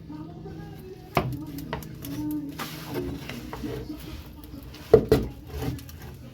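Sharp knocks from work on the car: one about a second in and two close together near five seconds, with lighter taps and clatter between, over faint background music.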